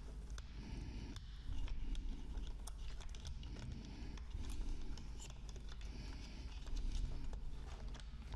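Faint, scattered clicks and scratchy rustles of hands handling the plastic and metal parts of a laptop being taken apart.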